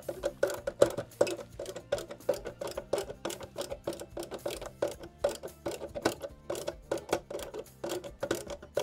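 Rapid, irregular clicking on a hollow plastic RC truck cab while a visor bolt is fastened: several sharp ticks a second, each with a short hollow ring from the cab body.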